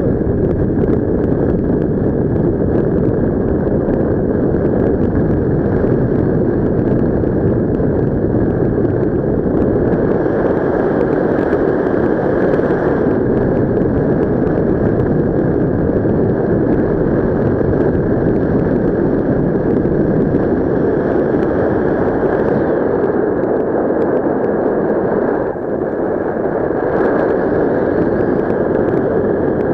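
Loud, steady rush of airflow buffeting a helmet-mounted camera's microphone in paragliding flight.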